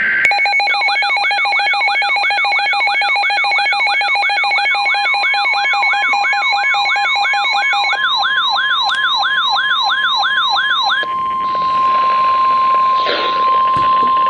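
NOAA weather radio receivers sounding their alert alarms together, set off by a SAME-coded severe thunderstorm warning: a rising siren-like warble repeating about three times a second over steady on-off beeps. About eight seconds in, the broadcast's steady warning alarm tone joins them. The receivers' alarms stop about eleven seconds in, leaving that one long tone.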